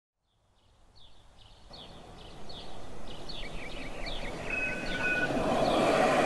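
Outdoor street ambience fading in from silence: small birds chirping repeatedly over a rising wash of traffic noise.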